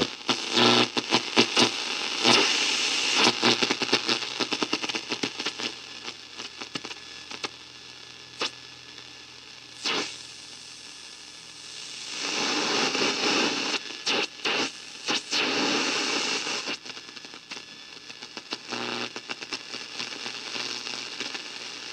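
Sanyo Campanetta 7-band radio hissing and crackling with static as its dial is tuned across the shortwave band, finding little but noise. The static is louder for the first few seconds and again for several seconds in the middle.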